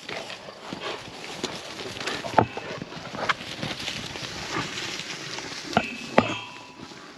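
A small herd of yaks running past, their irregular hoofbeats on paving and grass, with a few louder sharp knocks.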